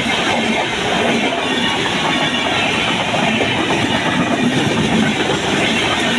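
Indian Railways LHB passenger coaches passing close by at speed: a loud, steady rumble of wheels on rail with a rapid run of clicks over the track joints.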